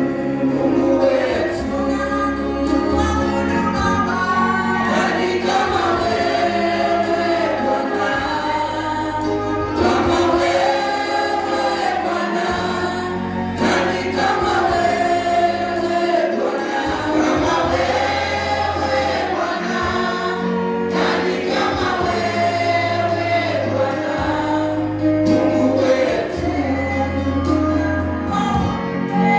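Gospel choir singing with instrumental backing and a steady bass line.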